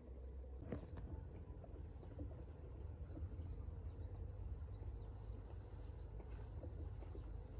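Faint rice-field ambience: a steady low wind rumble on the microphone, with a short high chirp about every two seconds and a few soft rustles.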